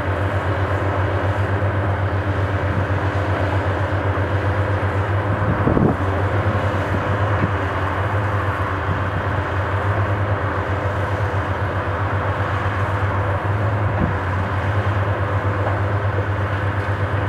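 High-reach demolition excavator's diesel engine running steadily, with a dull knock about six seconds in and a lighter one later.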